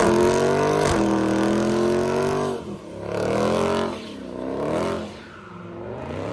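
Supercharged 6.2-litre Hemi V8 of a Dodge Challenger SRT Demon under hard throttle in second gear, with traction control off, as it is slid. Engine speed dips about a second in, then swings up and down several times as the throttle is worked, fading as the car pulls away.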